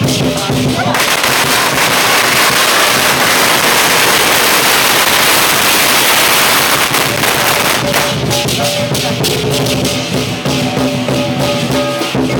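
A string of firecrackers going off in a dense, continuous crackle from about a second in until about seven seconds in. Lion dance percussion (drum, cymbals and gong) is heard before the crackle and comes back clearly after it stops, with steady strikes and a ringing gong.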